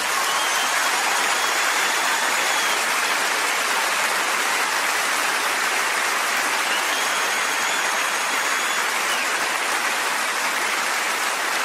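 Rain pattering steadily on a surface close to the microphone, an even dense hiss with no engine running. Two faint high whistling tones come and go, one early and one from about seven to nine seconds in.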